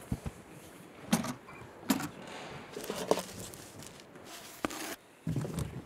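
Metal latches of a Gibson J-200 hardshell guitar case being unsnapped, a run of sharp clicks with the rustle and knock of the case and its lid being handled as it is opened.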